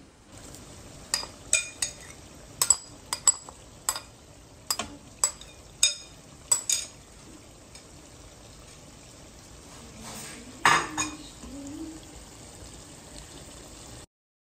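Chicken gravy sizzling in a frying pan on a gas stove, with a quick run of about a dozen sharp metal clinks of a utensil against the pan over the first several seconds and one louder clatter about ten and a half seconds in.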